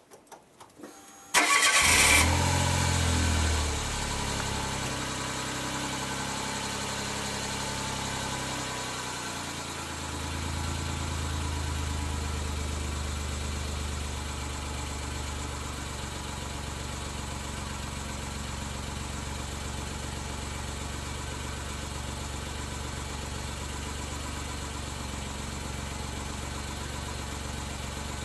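Suzuki Jimny JB23's 660 cc turbocharged three-cylinder engine heard through its stock muffler, starting after a few faint clicks about a second in. It catches at once at a raised idle that drops back over a couple of seconds, rises a little again around ten seconds in, then settles to a steady idle.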